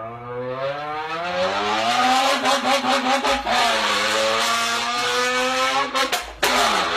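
A man imitating a sports car engine with his voice: the pitch rises as if accelerating, then holds with choppy, stuttering breaks, and a few sharp cracks come about six seconds in before the engine note picks up again.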